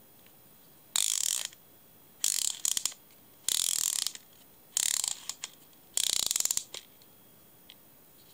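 Garcia Mitchell 710 Automatic clockwork fly reel's spring-driven mechanism ratcheting in five short bursts of about half a second each, roughly a second apart, some trailing off in a few quick clicks.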